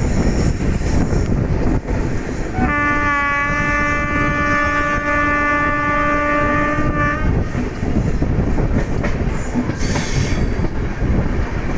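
Moving Indian Railways train, a continuous heavy rumble and wheel clatter, with the train's horn sounding once as a steady, held note for about four and a half seconds, starting a few seconds in.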